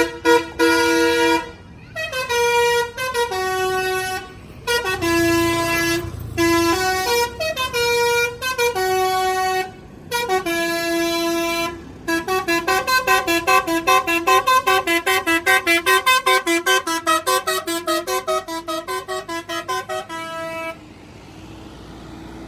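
Basuri telolet musical air horn on a Mercedes-Benz OH 1626 bus playing tunes. First come phrases of held notes with short breaks, then a fast run of short alternating notes. It stops near the end.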